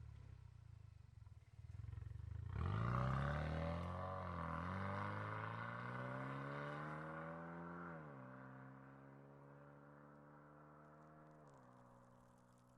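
First-generation Hyundai Veloster Turbo's 1.6-litre turbo four running through an aftermarket mid-pipe and end-muffler exhaust, tuned for a mid-to-high tone. The car pulls away, its exhaust note rising as it accelerates and dropping at upshifts about eight and eleven seconds in, and it gradually fades.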